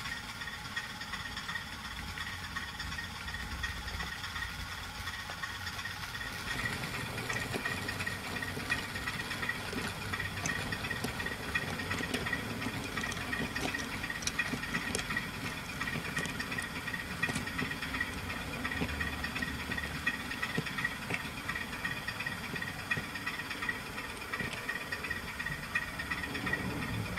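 Model freight train running past on the layout: a steady whir and rattle of the running train, louder from about six seconds in as it comes close, with scattered light clicks.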